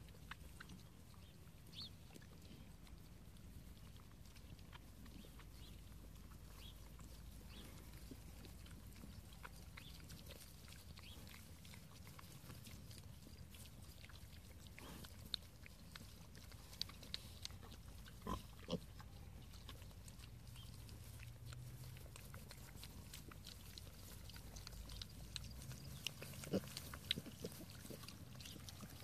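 Piglets grunting faintly as they root and graze in grass, with scattered small clicks and rustles. A few sharper noises come between about halfway and two-thirds through, and again near the end.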